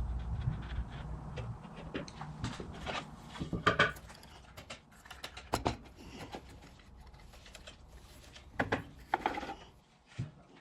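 Oak box being taken apart by hand: the wooden panels and the drawer frame are knocked, slid and set down, giving scattered knocks, clicks and rubbing of wood, loudest about four seconds in, near six seconds and near nine seconds.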